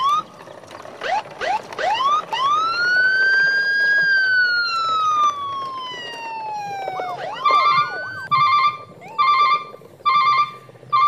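Siren-like electronic sound effect: a few quick rising whistle sweeps, then one long wail that rises and slowly falls. From about seven seconds in it turns into a warbling beep repeated in about five short pulses.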